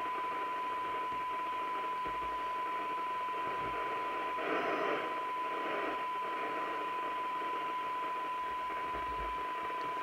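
A Maxcom 6E FM CB receiver is putting out a steady 1 kHz test tone over hiss: a weak tone-modulated signal from a signal generator, held near the limit of the receiver's sensitivity while its coils are tuned. The hiss swells briefly about halfway through.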